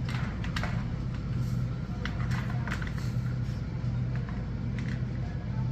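Steady low rumble of a motor vehicle running, with scattered short clicks over it.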